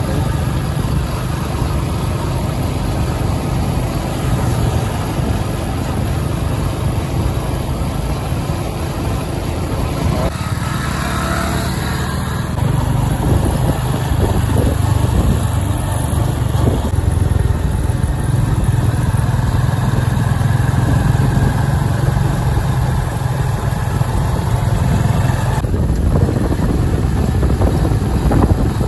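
Hero Honda CD100's 97cc single-cylinder four-stroke engine running steadily as the motorcycle rides along. It dips briefly about ten seconds in, then runs a little louder.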